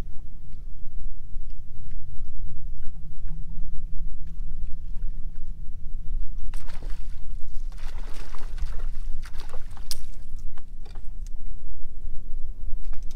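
Steady low rumble of a bass boat on the water, with a stretch of hissing, splashy noise and sharp clicks in the middle.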